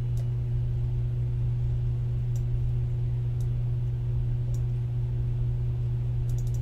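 Steady low hum with no speech, broken by a few faint clicks that fit keyboard keys being pressed.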